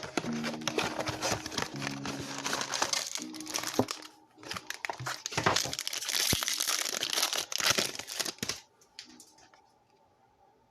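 Plastic packaging of a trading card blaster box being torn open and crinkled, loudest for a few seconds in the middle and stopping near the end.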